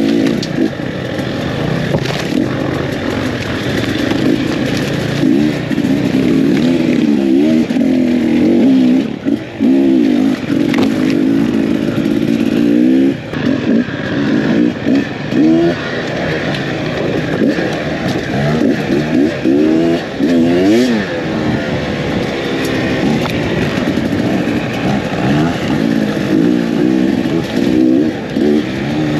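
Beta 300 X-Trainer two-stroke dirt bike engine being ridden off-road, its pitch rising and falling again and again as the throttle is opened and rolled off.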